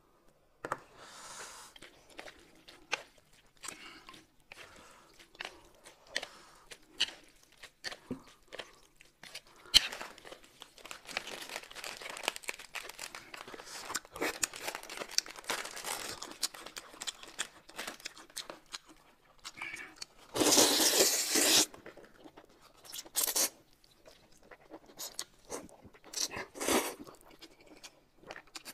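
Close-miked eating sounds: irregular crunching, tearing and chewing of food. There is a louder noisy burst about twenty seconds in, lasting about a second and a half, and two shorter ones after it.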